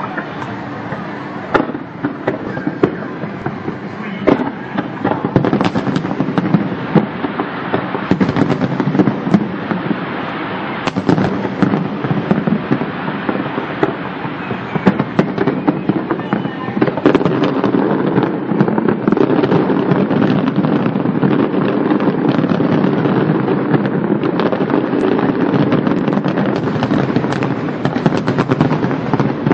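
Fireworks going off in a dense barrage of rapid pops and bangs, thickening into an almost continuous crackle in the second half.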